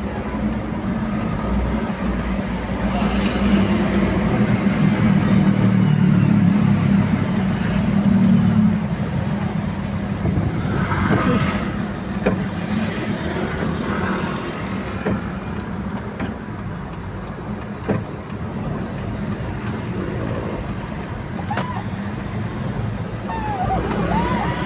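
Traffic passing on a highway, with a heavy vehicle's engine drone swelling and then fading in the first third.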